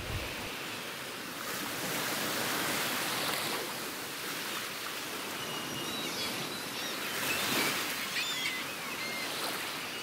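Sea surf washing steadily, with a few short, high bird calls over it from about six seconds in.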